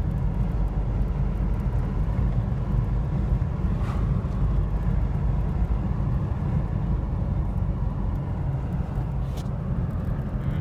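Steady low rumble of a car driving at road speed, heard from inside the cabin: engine and tyre noise. Two faint brief ticks come about four and nine seconds in.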